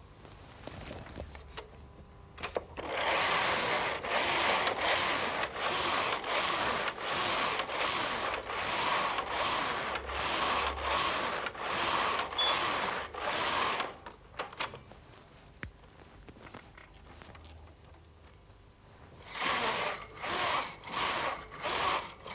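Brother KH-950i knitting machine carriage pushed back and forth across the needle bed, rattling on each pass at about one pass a second, knitting the rows of a motif. The passes stop for a few seconds after the middle, then resume, a little quicker, near the end.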